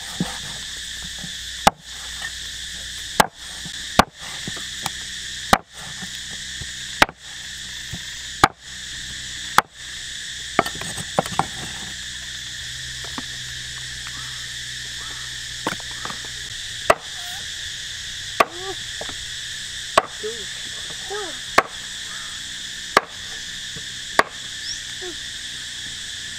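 Knife chopping food, one sharp chop about every second and a half, with pauses between runs. Insects drone steadily behind it.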